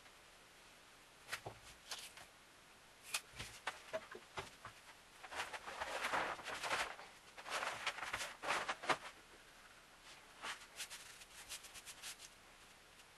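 Hands working masking tape and a thin wood-veneer sheet on a wooden tabletop: scattered light knocks and taps, two stretches of rubbing and rustling around the middle, then a few light ticks.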